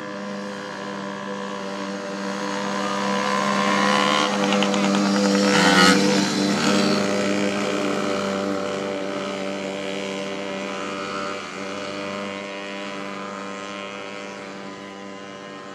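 Small engines of a group of minibikes and a mini quad running together as they ride up, pass close by about six seconds in, where they are loudest, and then fade steadily as they ride away.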